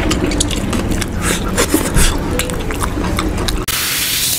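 Sped-up eating sounds: wet clicks and squelches as curried meat is pulled apart and eaten by hand. Near the end it cuts suddenly to a steady fizzing hiss as fizzy soda is poured into a glass.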